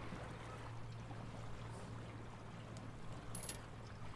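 Water splashing and lapping against the hull of a small aluminium electric boat under way, over a steady low hum.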